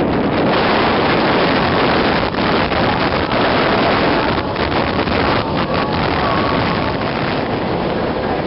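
Steady rush of wind and road noise from a moving car, the wind buffeting the microphone.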